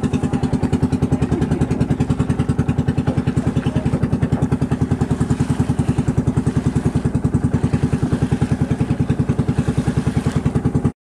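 Engine of a motorized outrigger boat running steadily under way, with a fast, even pulsing beat. It cuts off suddenly near the end.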